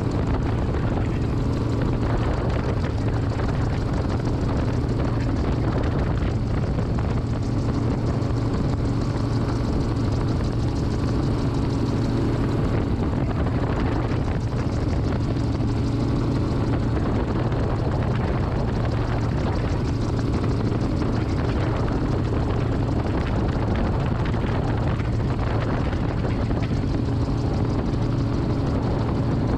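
Titanium gyroplane engine and propeller droning steadily in flight, heard from the open cockpit, with a constant low hum over rushing air.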